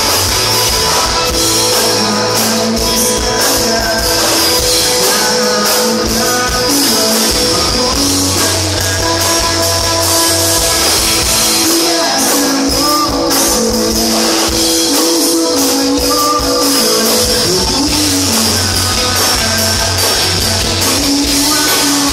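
Live pop-rock band playing through a PA: a man singing over electric guitars, drums, violin and cello, loud and steady.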